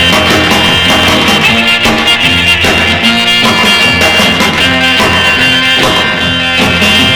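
Instrumental break of a late-1950s rock and roll record: the band plays on with a steady beat and a walking bass line, no vocals.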